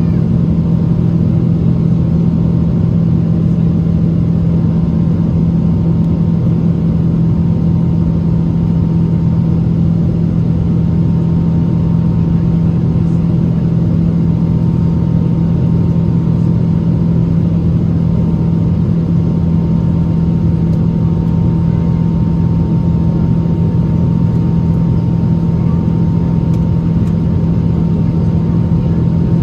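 Boeing 777-200ER jet engines heard inside the cabin during the climb after takeoff: a loud, unchanging roar with a steady low hum and a faint steady higher whine over it.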